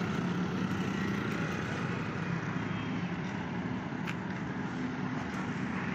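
A vehicle engine running steadily, with road traffic noise; a faint click about four seconds in.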